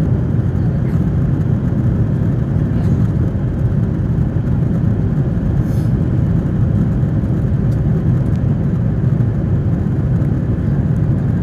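Airliner cabin noise: the jet engines and rushing air make a steady, loud low rumble with no change.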